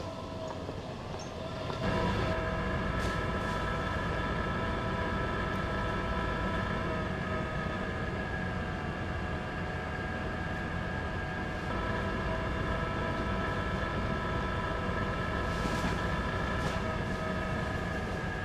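Lexus GX470 SUV driving along a dirt mountain road: a steady low rumble of engine and tyres with a constant hum above it, getting louder about two seconds in, with a few light knocks and rattles from bumps.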